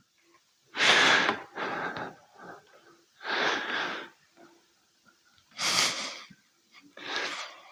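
A man laughing under his breath: five breathy, mostly unvoiced bursts of laughter, each about half a second long and a second or more apart.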